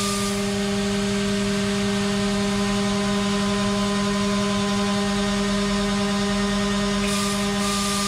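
Haas VF-2SS CNC mill cutting aluminium with a Tas rougher end mill, its spindle at about 11,460 rpm giving a steady, even whine over the hiss of the flood coolant spray.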